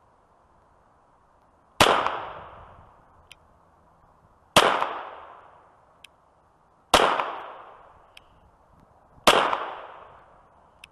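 Four single shots from a Glock 44 .22 LR pistol firing CCI Blazer 38-grain lead round nose ammunition, slow deliberate fire about two and a half seconds apart. Each crack is followed by an echo dying away over about a second, with a faint tick between shots.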